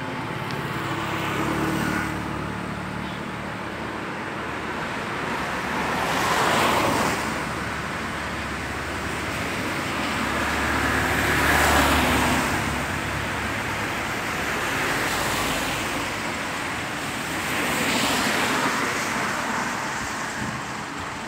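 Road vehicles passing one after another: a steady rushing noise that swells and fades with each pass, about five times, with a low engine hum under the loudest pass.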